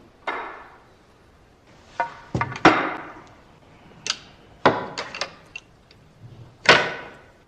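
A quick, irregular series of sharp knocks, about nine in all, each followed by a short fading tail; the loudest come about two and a half and about six and a half seconds in.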